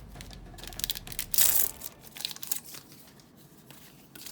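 A trading-card booster pack wrapper crinkling and being torn open, with the loudest rip about a second and a half in and a few smaller crinkles after it.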